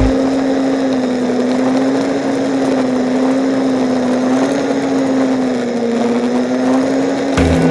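ATV engine running at a steady, high-pitched cruising speed while riding along a road, its pitch wavering only slightly.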